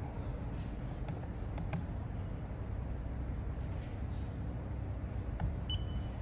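Steady low background rumble, with a few light clicks and taps from something being handled on the repair mat and a short high tone near the end.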